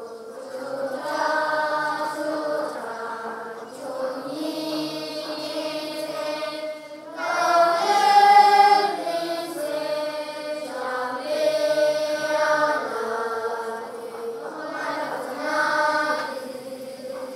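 Many children's voices chanting a Tibetan Buddhist prayer in unison, in long sustained phrases with short breaths between them, swelling louder and higher about halfway through.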